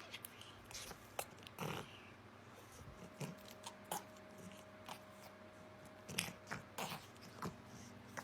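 A cat biting and chewing, with irregular small clicks and crunches a few times a second at most.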